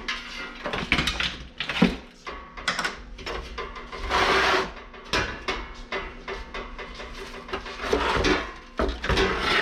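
Metal parts of an air conditioner knocking and clattering as it is dismantled, with a short harsh burst of noise about four seconds in.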